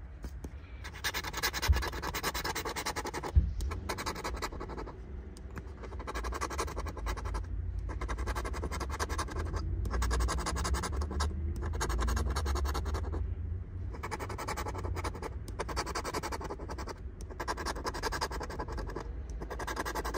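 Metal-tipped tool scraping the coating off a paper scratch-off lottery ticket on a hardboard clipboard, in stretches of a second or two with brief pauses between, over a low rumble. Two short knocks come about 2 and 3.5 seconds in.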